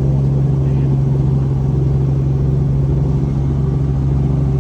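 Helicopter engine and rotors running with a loud, steady drone, heard from inside the cabin.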